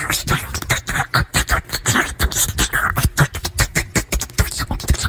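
Small dog chewing watermelon held up to its mouth: a rapid, irregular run of wet crunches and smacking chomps.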